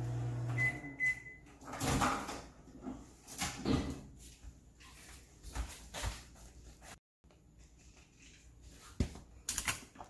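Microwave oven's running hum stops under a second in as it is switched off, followed by a few short high beeps. Then clicks and knocks as the door is opened and a plastic bowl is taken out and handled.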